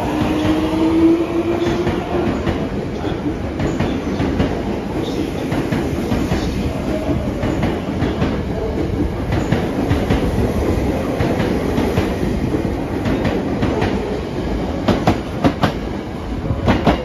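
Tokyo Metro 05 series electric train pulling out and gathering speed alongside the platform: a motor whine rises in pitch over the first couple of seconds, then the steady rolling rumble of the cars passing, with a quick run of sharp clacks from the wheels over rail joints near the end.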